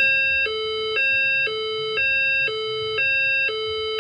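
Fire alarm voice evacuation system sounding its alert signal tone, a hi-lo pattern switching between two pitches every half second. The tone signals a report of an event in the building that is being verified, not yet an evacuation order.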